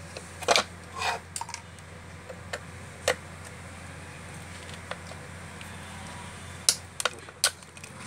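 Scattered sharp metal clicks and taps of a screwdriver working the terminal screws on a water heater's heating-element flange: a few in the first second, one about three seconds in, and a quick cluster near the end, over a low steady hum.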